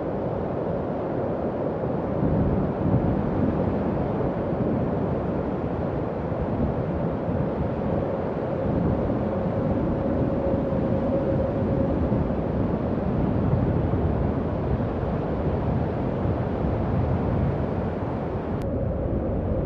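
Howling wind sound effect: a steady rushing noise with a held, moaning mid-pitched tone over it. The tone weakens partway through and comes back near the end, where the hiss also thins at the top.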